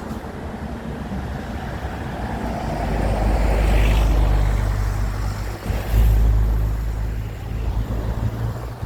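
A motor vehicle passes by, growing louder to its peak about four seconds in and then fading, over a low wind rumble on the microphone.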